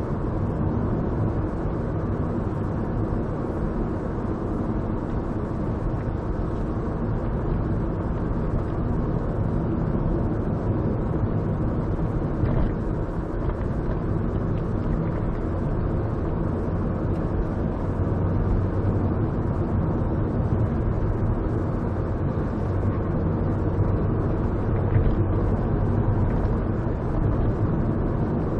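Car driving at town speed, heard from inside the cabin: a steady low hum of engine and tyre noise with no sudden events.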